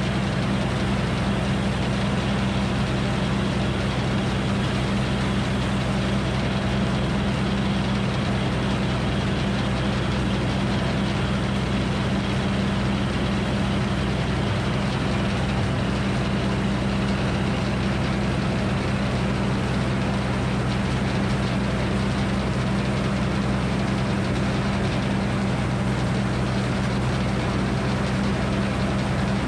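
Circular sawmill running steadily, its big blade spinning free between cuts while the log is set on the carriage, a constant hum with no change in load.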